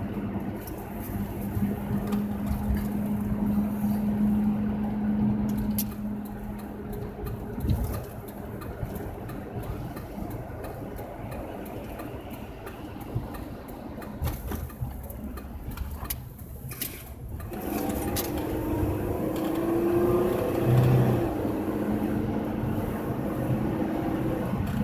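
A car driving, its engine and tyre noise heard from inside the cabin. The noise grows louder in the last third, with a clearer engine note.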